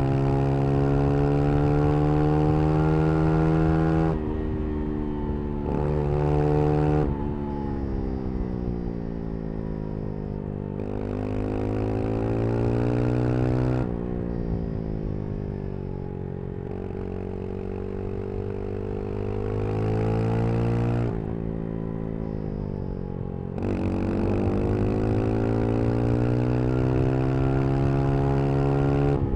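Brixton Crossfire 125 XS's small single-cylinder engine riding hard through curves: it pulls at high revs, then the throttle shuts off about four times, the pitch sliding down and climbing again as it accelerates out.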